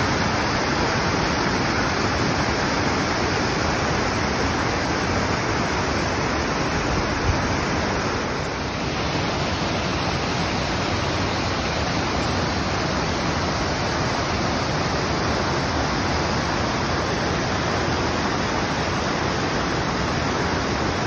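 Mountain creek cascading over boulders: whitewater rushing loudly and steadily.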